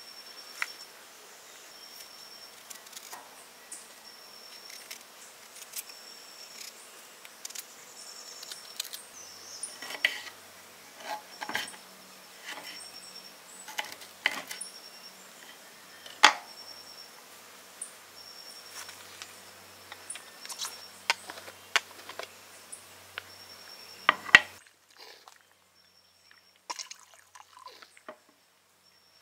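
Knife slicing fresh ginger root on a wooden cutting board: scattered sharp knocks of the blade striking the board, a few of them loud. A faint, high insect-like chirp repeats about once a second behind it.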